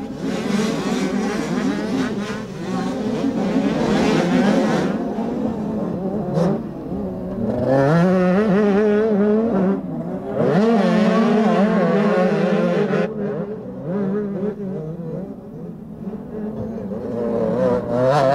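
Small 60cc two-stroke youth motocross bike engines revving hard. The pitch climbs and drops again and again as the riders work the throttle and shift through the gears.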